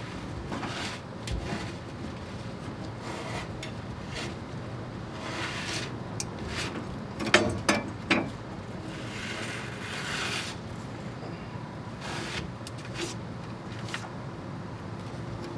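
Hands working on car parts: irregular rubbing and scraping with short knocks, and a quick cluster of clanks about seven to eight seconds in, over a steady low hum.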